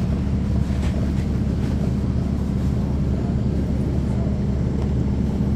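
Caterpillar C13 ACERT diesel engine of a NABI 40-SFW transit bus running steadily, a deep even hum heard from the rear seats inside the bus, right by the engine.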